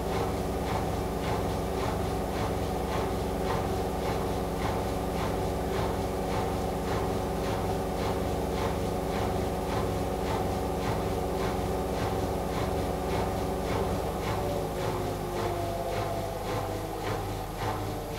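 AEG Lavamat washing machine on its final spin, motor and drum whining steadily with a regular light ticking about three times a second; near the end the whine falls in pitch as the spin begins to slow.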